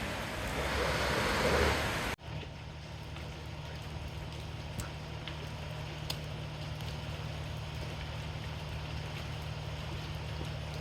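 Strong wind buffeting the microphone in gusts, then an abrupt cut about two seconds in to a steadier low rumble with a few faint ticks.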